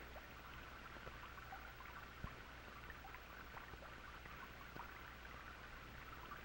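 Faint steady hiss and low hum of an old film soundtrack, with scattered small clicks and pops and one sharper click a little after two seconds in.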